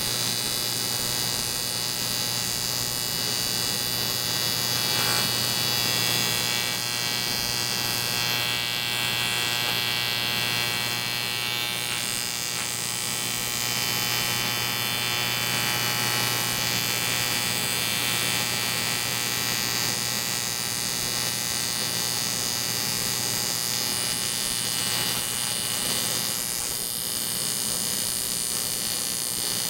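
AC TIG welding arc buzzing steadily on the aluminium crankcase of a 1947 Harley-Davidson EL knucklehead, a repair weld on a cracked case, with a hiss over the buzz.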